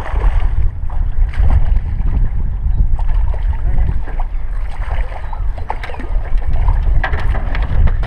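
Wind rumbling on the microphone over choppy water slapping a small boat's hull, with scattered short splashes and clicks as a hooked striped bass thrashes at the surface beside the boat.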